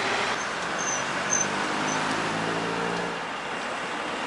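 Street traffic noise with a motor vehicle passing, its engine hum standing out for about a second and a half midway. A few faint high chirps sound about a second in.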